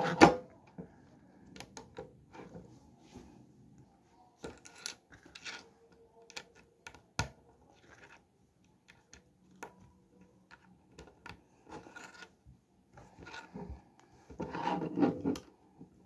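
Plastic Lego bricks clicking and knocking against each other and a wooden tabletop as they are handled and pressed together, in scattered sharp clicks, with a louder spell of handling near the end.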